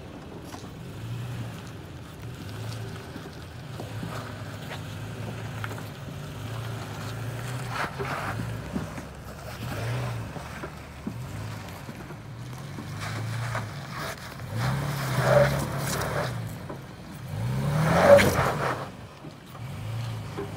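Toyota Tacoma pickup's engine revving in short throttle pulses while crawling up a rocky hill climb, with harder rises in revs about 15 and 18 seconds in.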